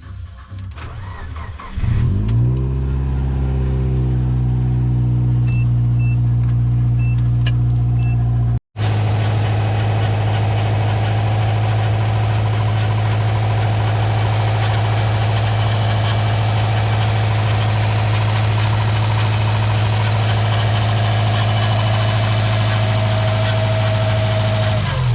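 Subaru EJ20 flat-four engine starting: it catches about two seconds in, rises and settles into a steady idle, then keeps running evenly.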